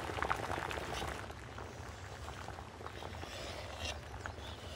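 Water at a gentle boil in a large metal pot, bubbling faintly, while foam is skimmed off with a metal skimmer that makes a few light clicks.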